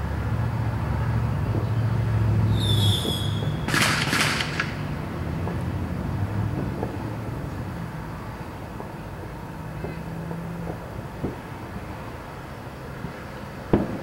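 Distant fireworks popping now and then, with a sharper pop near the end, over the rumble of a vehicle passing on the street. The rumble is loudest two to three seconds in, where a brief high squeal is followed by a short hiss.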